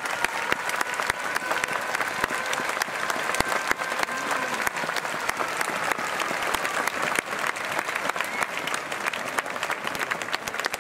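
Stadium crowd applauding steadily, with many sharp claps from hands close by and faint voices underneath.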